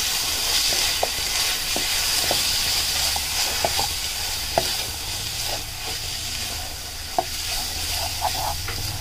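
Onion-tomato masala with freshly added spice powders sizzling in a frying pan while a wooden spatula stirs it, with a steady frying hiss and scattered light clicks and scrapes of the spatula on the pan.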